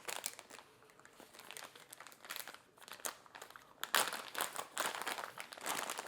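A product packaging bag crinkling and rustling in irregular crackles as it is opened and the cables are taken out. It gets busier and louder in the second half.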